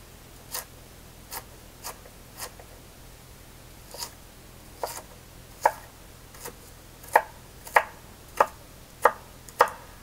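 Kitchen knife chopping onion on a wooden cutting board: a dozen or so knocks, sparse and uneven at first, then steadier at roughly one to two strokes a second in the second half.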